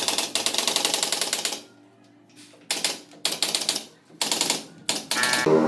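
Bursts of rapid mechanical rattling from a power tool: one lasting about a second and a half, then four short bursts after a pause.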